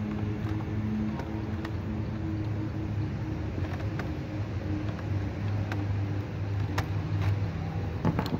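Steady low motor hum, with light clicks of needle-nose pliers against a laptop's metal screen hinge scattered through it and a quick cluster of louder clicks near the end.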